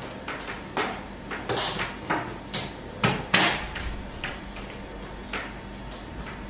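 Rubber-sheathed power cables being handled and dragged across a desk, their plastic plugs knocking on it: a string of short knocks and rustles, busiest in the first three seconds or so.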